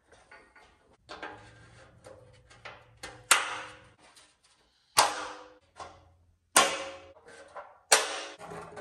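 Sharp plastic clicks and knocks as parking sensors are pressed and snapped into a plastic bumper cover, four loud ones with short ringing between smaller taps and handling sounds.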